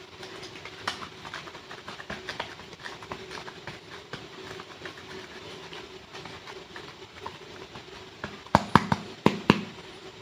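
Small clay packs being unwrapped and handled: a steady run of fine crinkling and crackling, then a burst of about five sharp, loud snaps or clacks near the end.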